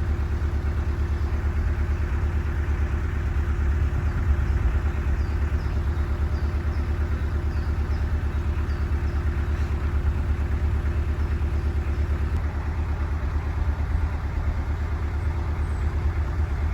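Narrowboat engine running steadily, with an even beat of firing strokes.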